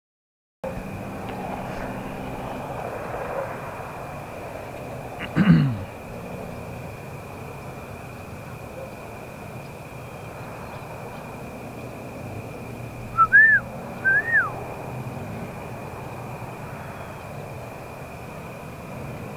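Outdoor evening ambience with a steady distant hum and a constant thin high whine. The sound cuts out for about half a second at the very start, and a brief low falling sound comes about five seconds in. Two short, arching whistled animal calls come one after the other about thirteen seconds in and are the loudest sounds.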